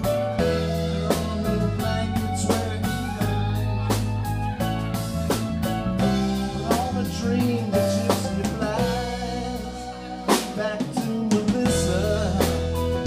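Live rock band playing a mid-tempo song: electric guitars, bass, keyboards and drum kit, with a man singing at times.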